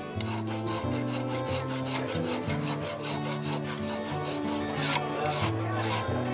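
A toothed hand tool scraping back and forth across wood in quick, regular strokes, over background music with steady low notes.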